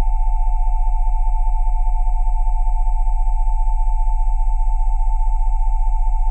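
Steady electronic sine tones at about 727, 787 and 880 Hz layered over a very deep 20 Hz tone, with a fast, even flutter in loudness and no change in pitch.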